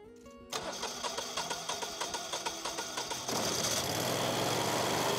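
Propane whole-house standby generator engine starting up with a rapid, even pulsing. About three seconds in it changes to a louder, steady run with a faint rising whine.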